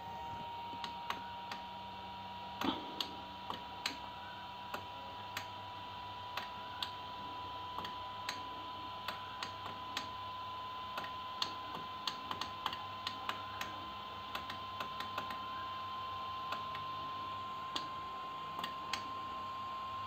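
Push buttons on an Anet A8 3D printer's LCD control panel clicking as they are pressed one at a time, irregularly about one or two a second, over a steady faint high whine and low hum.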